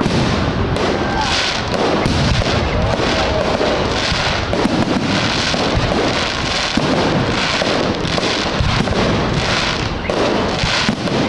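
Fireworks display: aerial shells bursting overhead one after another in quick succession, loud and without a break.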